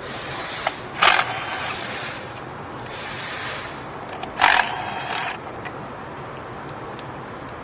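Impact gun on a 14 mm spark plug socket, run twice in a few-second spell to back the spark plugs out. Each run has a short, louder burst near its start.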